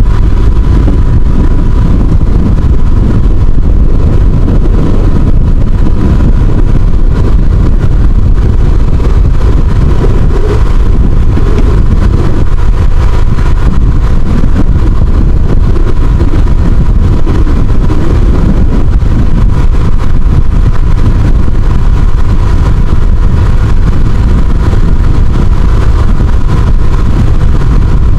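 Outrigger fishing boat's engine running steadily: a loud, even low rumble with a thin steady whine on top.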